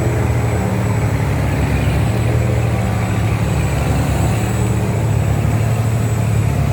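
Boat engine running steadily with a deep drone, under heavy load while towing a larger vessel stuck in mud.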